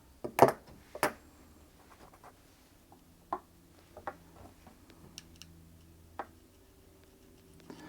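Small metal sewing-machine parts and a screwdriver being handled: two sharp clicks in the first second, then a few lighter ticks and taps spread through the rest.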